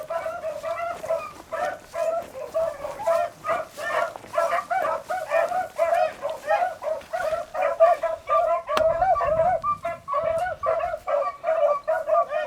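A pack of beagles baying in short, rapid, overlapping barks, several a second without a break, as they run a rabbit's track. A single sharp crack is heard about two-thirds of the way through.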